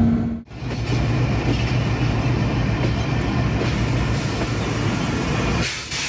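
Pakistan Railways passenger coaches rolling past close by on the adjacent track: a steady rumble and clatter of wheels on the rails, after a brief dropout about half a second in.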